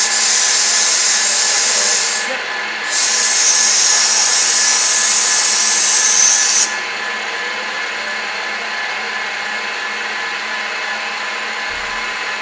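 Compressed-air blow gun hissing in two blasts, about two seconds and then, after a short pause, nearly four seconds, over the steady running of a TOS FN20 milling machine cutting a metal flange.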